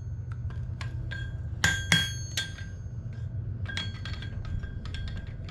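Hammer striking a steel horseshoe on an anvil, each blow ringing: three strong blows about a second and a half in, then a run of lighter, quicker taps. A steady low hum runs underneath.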